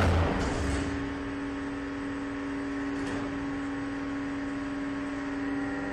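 A short knock with a low thud at the very start, then a steady machine hum of several held tones.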